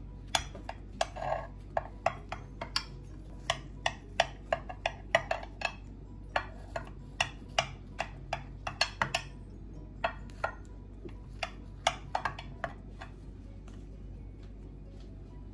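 A knife cutting through a baked lentil cake in a glass baking dish: many irregular sharp clicks and taps as the blade presses through and meets the glass, stopping near the end.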